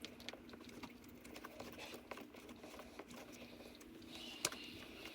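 Faint clicks and small taps of hands working an oil bottle at a small generator engine's fill opening while topping up the oil, with one sharper click about four and a half seconds in. A steady low hum runs underneath.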